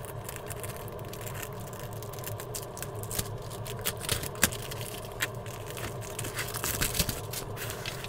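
Plastic wrap being slit with a utility knife and torn and pulled off a cardboard box, with many sharp crackles, crinkling and scraping, over a steady low hum.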